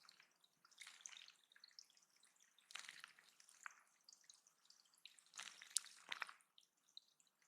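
Faint splashing and dripping of water in a shallow bird pond, in three short bursts about two seconds apart.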